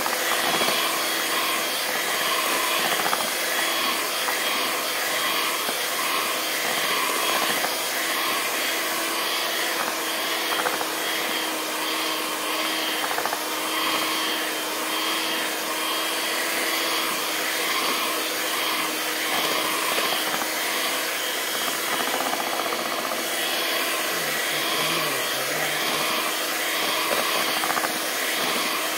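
Electric hand mixer running steadily, its beaters whisking a thick egg-and-flour batter in a bowl.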